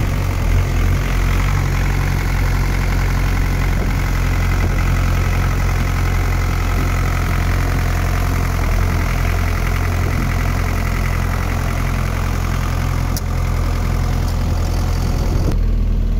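The small diesel engine of a trailer refrigeration unit running steadily, a continuous low drone. Near the end the higher part of the sound drops away sharply while the low hum carries on.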